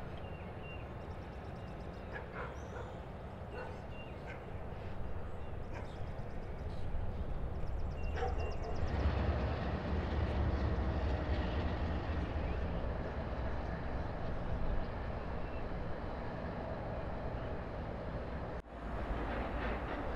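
Freight train running: a steady low rumble of diesel locomotive engines and wheels on the rails, growing louder about nine seconds in.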